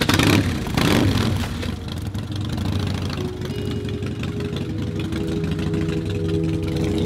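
Cruiser motorcycle engine starting suddenly, blipped loudly twice in the first second, then settling into a steady idle.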